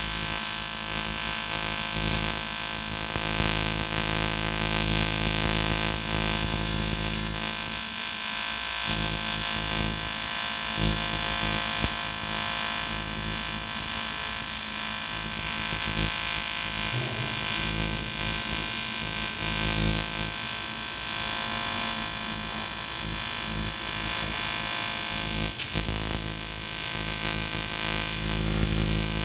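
AC TIG welding arc on an aluminium motorcycle cylinder block, giving a steady electric buzz with a hiss over it, briefly easing about eight seconds in.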